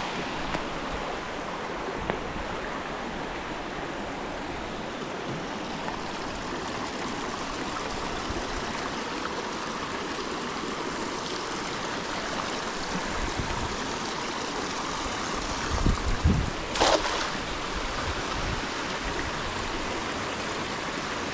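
Shallow stream water running steadily, with a few brief thumps about sixteen seconds in.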